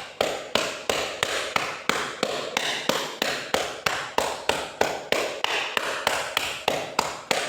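Steady, even strikes of a cupped hand on a person's upper back around the shoulder blades, about three a second: chest percussion (clapping) to loosen phlegm in a cough.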